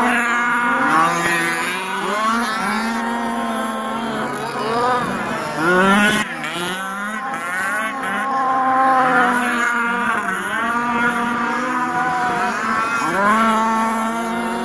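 Several quarter-scale RC race cars' small two-stroke petrol engines buzzing around a dirt oval, their overlapping pitches rising and falling as they rev down the straights and ease off into the turns. One gets louder as it passes close about six seconds in.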